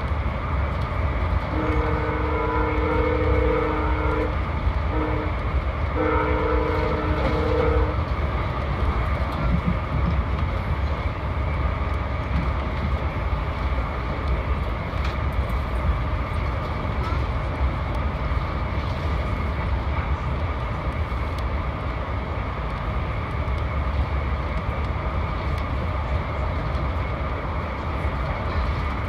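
Passenger train running at speed, heard from inside the coach as a steady rumble on the rails. Over it, the lead GE P42DC locomotive's two-note horn sounds a long blast, a short one and a final long blast that stops about 8 seconds in: the end of a long-long-short-long grade-crossing signal.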